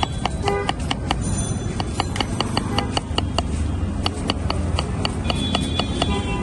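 Knife cutting a cucumber into slices on a wooden board, a quick even run of sharp taps about five a second with a short break about halfway through.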